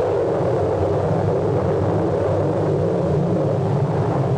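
Tornado sound effect on an old film soundtrack: a loud, steady rush of wind with a low rumble underneath.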